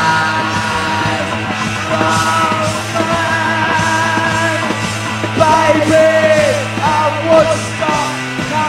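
Punk rock band playing live: electric guitar, bass guitar and drums, with the singer yelling the vocals into the microphone.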